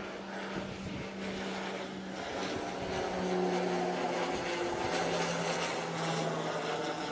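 Twin-engine propeller plane flying low overhead, a steady propeller drone that grows louder about halfway through and drops slightly in pitch as it passes.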